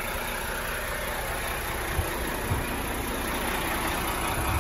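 Renault Trucks tractor unit's diesel engine idling steadily, with a low, uneven rumble.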